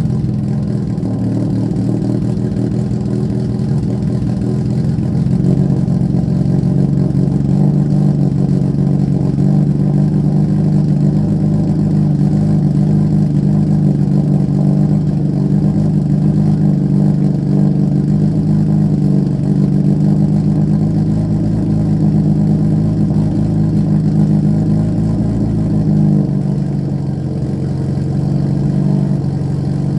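Honda K20A3 2.0-litre inline-four idling steadily, just after being started. The idle note drops slightly about 26 seconds in.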